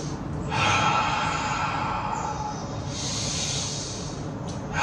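A man's slow, deep breathing: two long breaths of about two seconds each, one after the other. They are deep belly breaths, with the breath out pushed through the throat.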